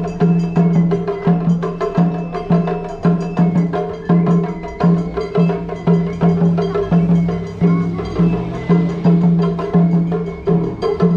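Japanese festival hayashi music, with rhythmic percussion strokes about one and a half times a second over steady pitched tones.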